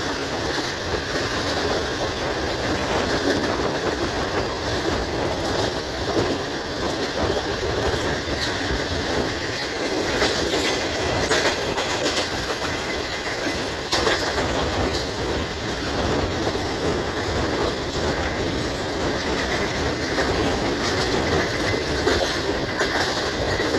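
Hazara Express passenger coach rolling along the track: steady running noise of wheels on rails, with a clattering rhythm and a few sharper clicks now and then.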